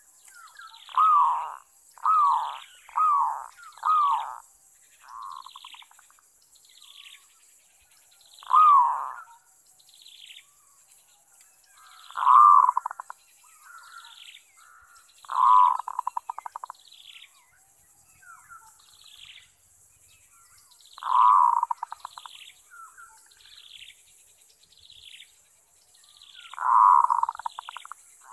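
Zebra dove cooing: four coos about a second apart, then single coos every few seconds, each trailing off in a fast stutter. Another bird gives a short falling chirp about once a second throughout, over a steady high hiss.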